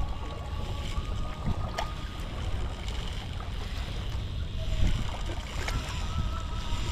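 Wind noise on the microphone over small waves lapping at the water's edge, with a few faint clicks.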